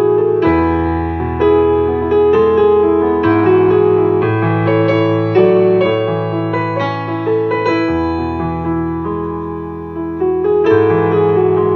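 Electronic keyboard played with a piano sound: a slow, gentle piece of chords in the middle register over long low bass notes that change every few seconds.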